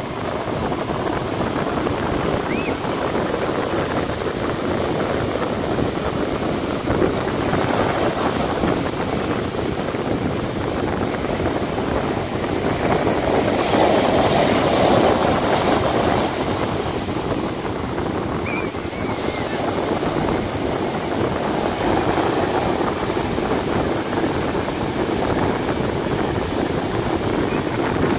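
Ocean surf breaking and washing up a sandy beach, a steady rush that swells loudest about halfway through as a bigger wave comes in. Wind buffets the microphone.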